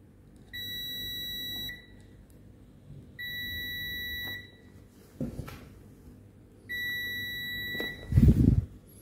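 Continuity beeper of a Mestek DM91A digital multimeter sounding three times, a steady beep of a little over a second each, as the probes bridge the kettle base's plug pins and contacts: each beep shows that the connection is intact. A loud low thump near the end.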